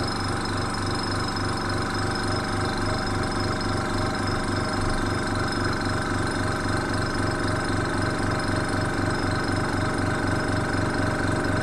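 Air compressor running steadily with a regular low pulsing, about four or five beats a second. It is supplying air for a pressure test of a model engine's cylinder head.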